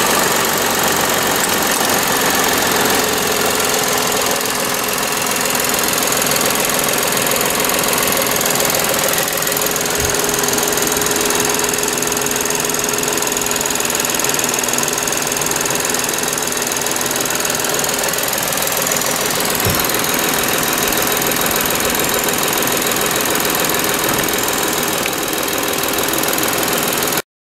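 2007 Lexus IS250's 2.5-litre V6 engine idling steadily, with no revving.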